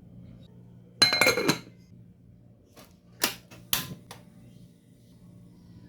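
Kitchenware clattering: a ringing clink of utensils against cookware about a second in, then two sharp knocks a moment apart.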